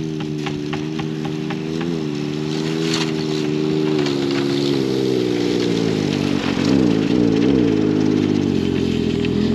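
An engine running steadily. Its pitch dips briefly about two seconds in and wavers up and down near the end.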